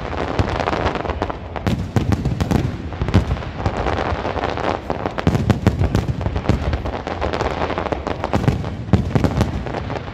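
Aerial fireworks display by Senatore Fireworks: a rapid barrage of shell bursts, many overlapping bangs and pops in quick succession with no pause.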